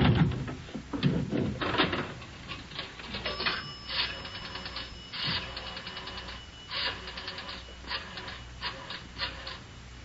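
Radio-drama sound effect of a pay telephone in use: a thump or two, then a rotary dial clicking in several quick runs of pulses as a number is dialed.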